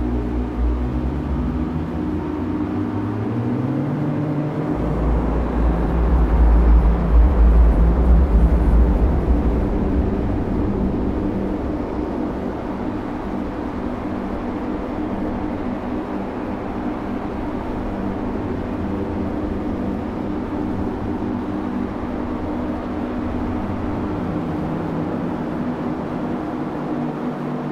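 Road traffic: an engine speeding up with a rising pitch in the first few seconds, then a loud deep rumble from about five to ten seconds in, settling into a steady engine hum.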